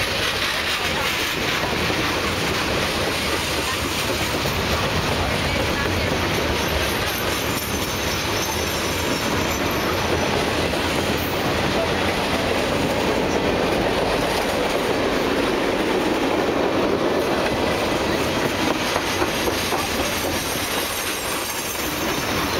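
Freight train cars rolling past close by: a steady noise of steel wheels on the rails, with a clickety-clack as the wheels cross the rail joints.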